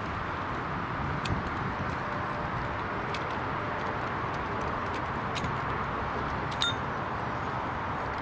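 Hand pipe cutter being turned around a copper pipe, giving scattered light metallic clicks over a steady background hiss.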